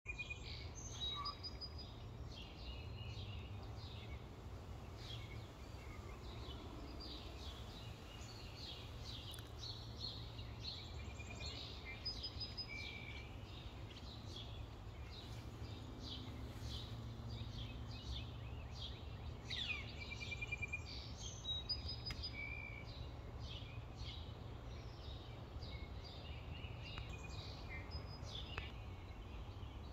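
Several songbirds calling and singing, with short high chirps and brief trills repeating throughout, over a steady low rumble.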